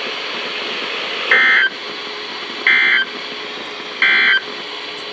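Emergency Alert System end-of-message tones: three short, identical buzzy data bursts about a second and a half apart over steady radio hiss, the SAME code that closes a broadcast weather warning.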